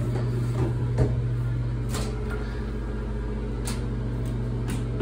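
A steady low hum, with a couple of knocks in the first second as a wooden vanity drawer is handled, and a few faint sharp clicks after that.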